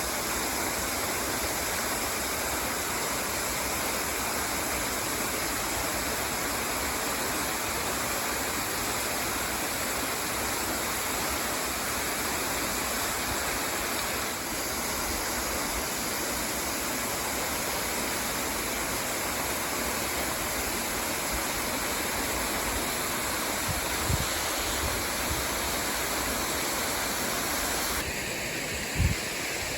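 Delphi Falls, a tall waterfall running through winter ice, giving a steady, even rush of falling water. Two brief low thumps come near the end.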